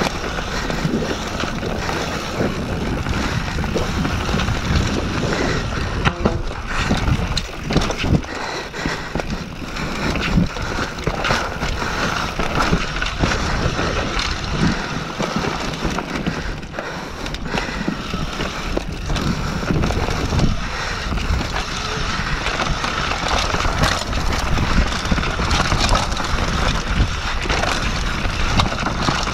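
Mountain bike descending a rough dirt trail: wind rushing over the camera microphone, tyres rolling over dirt and stones, and the bike rattling with frequent knocks over bumps.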